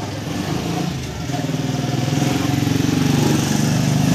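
A small engine running close by with a steady pulsing note, growing louder about a second in and holding there.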